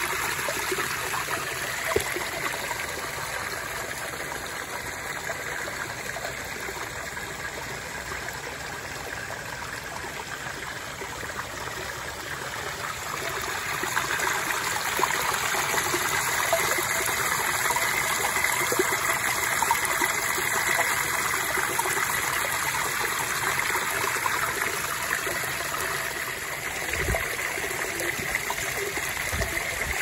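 Water pouring from a stone spout into a shallow pool, splashing steadily. It grows a little louder about halfway through.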